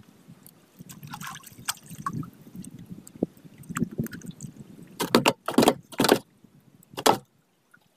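Water sloshing and splashing around a small boat with handling knocks, then four loud, short splashes in the second half.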